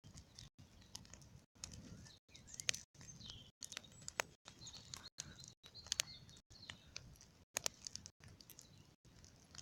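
A large bonfire crackling, with sharp irregular pops and snaps. Faint bird chirps come through now and then, and the sound keeps cutting out for an instant.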